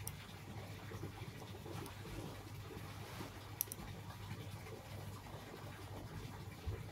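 Hands rubbing and smoothing cotton fabric on a cloth-covered table, a faint scratchy rustle, over a low steady hum. Two faint ticks come a little past halfway.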